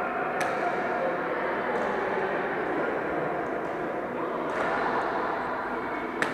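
Badminton rackets striking a shuttlecock: a few sharp clicks, the loudest near the end, over a steady din of distant voices in the hall.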